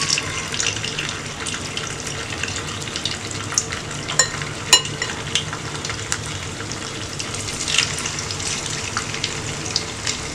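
Marinated chicken wings deep-frying in hot oil: a steady sizzle with frequent crackles and a few louder pops.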